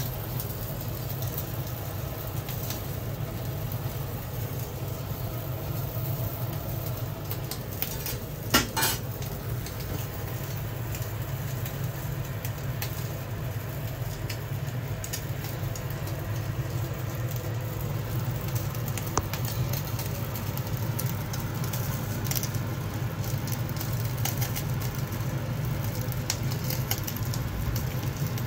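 Gas stove burner running with a steady low rumble under a whole fish grilling on a wire rack. The fish gives light sizzling and scattered crackling ticks. A single sharp knock comes about eight and a half seconds in.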